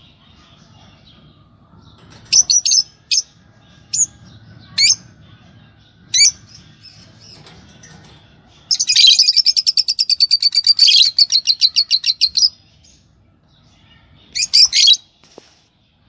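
Lovebirds calling: five separate sharp, shrill chirps, then about four seconds of rapid chattering at several calls a second, and another short burst near the end.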